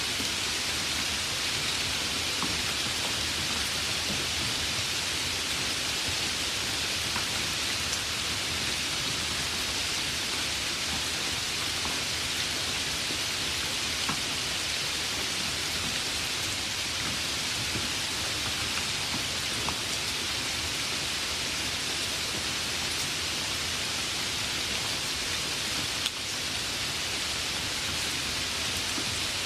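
Heavy rain falling steadily: a dense, even hiss with scattered ticks of individual drops. A single short click comes late on.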